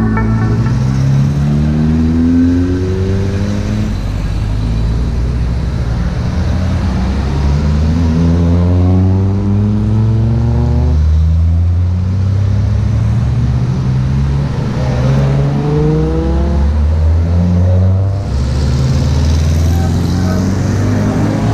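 Classic cars driving past one after another, each engine revving up as it pulls away, so that a rising engine note comes round about every five to six seconds over a steady low engine hum.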